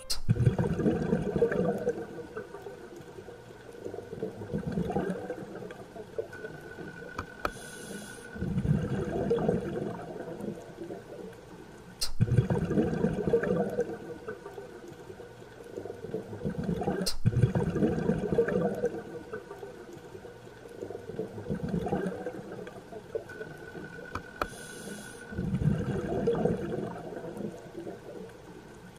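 Underwater sound of bubbling, rushing water that swells and fades about every four seconds, with a sharp click twice.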